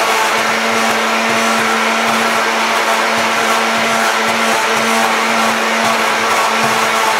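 Electric immersion blender running at a steady speed in a glass bowl, blending egg yolks with sugar and salt; its motor gives an even, unbroken hum.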